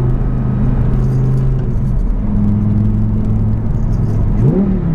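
Audi R8's 5.2 FSI V10 with a Fabspeed valved exhaust, running steadily while driving, heard from inside the cabin. Its pitch steps down a little about two seconds in, and near the end there is a quick rise and fall in pitch.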